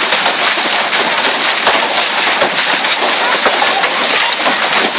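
Hailstones pelting down hard, a dense, loud clatter of many small impacts over the steady hiss of rain.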